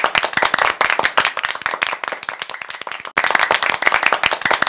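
Applause: many hands clapping densely, with a sudden break a little after three seconds in before the clapping resumes.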